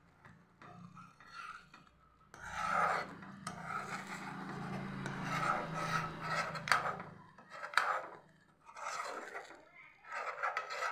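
Metal spoon stirring and scraping around a pan of thick, cooking milk-powder barfi mixture: runs of rasping strokes with a few sharp clicks of the spoon against the pan, pausing briefly about 8 seconds in.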